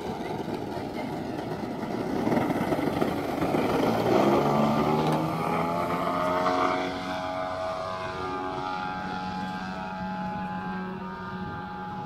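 Engine and propeller of a giant-scale composite Extra 330SC RC aerobatic plane at full throttle on its takeoff run. It gets louder about two seconds in and rises in pitch, then settles into a steadier, fainter drone as the plane climbs away.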